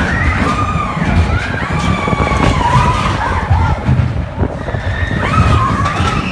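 Ride car rumbling along its track at speed, with riders' high wavering screams over the rumble.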